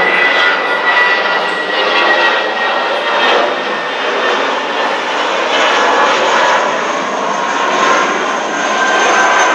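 Jet engines of an Airbus A320-family airliner climbing out after takeoff: a steady, loud roar with a thin whine held above it.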